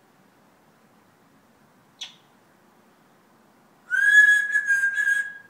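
A parrot gives a brief high chirp about two seconds in, then a loud, long whistle that rises slightly and holds one pitch from about four seconds in.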